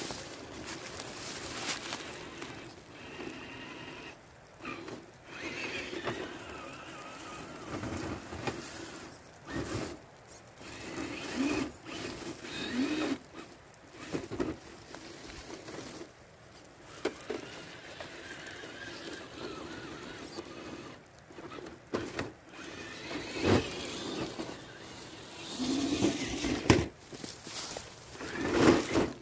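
Small electric motor and gear drivetrain of a 1/10-scale RC crawler whining in short spurts. The pitch rises and falls as the throttle is worked, with an occasional bump from the truck moving over rough ground.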